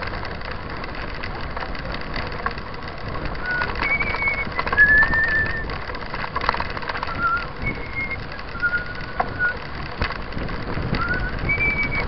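Mountain bike tyres rolling over a gravel road with wind noise on the camera, and a string of short, clear whistled notes at a few different pitches from a few seconds in until near the end.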